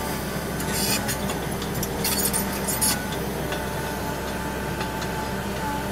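Hitachi demolition excavator's diesel engine and hydraulics running steadily. Two short bursts of crackling and clinking, about a second in and again from about two to three seconds in, fit concrete and debris breaking off the building.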